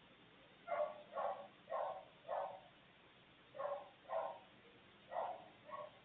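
A run of short animal calls: four about half a second apart starting just under a second in, then two pairs.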